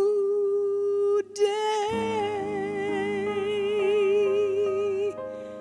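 A woman singing the last long held note of a song with vibrato, breaking briefly for breath about a second in. Sustained piano chords enter about two seconds in. The voice stops near the end while the chords ring on.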